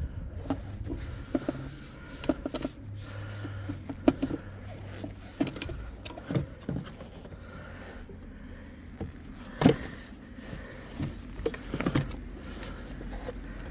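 Scattered clicks and knocks of hard plastic as the air filter housing lid of a BMW E90 is unclipped and lifted open, the loudest knock a little under ten seconds in, over a low steady hum.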